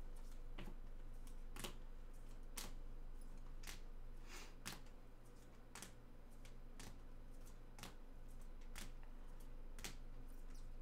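Trading cards being handled one at a time during a card recap, with a light, sharp click about once a second, over a faint steady hum.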